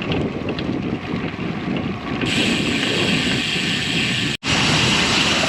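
Bicycle tyres rolling over gravel, a crackly crunching rumble; about two seconds in a louder steady hiss of wind on the microphone comes in. The sound cuts out for an instant near the end.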